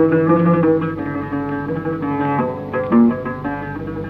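Background music: a plucked-string melody of quick separate notes.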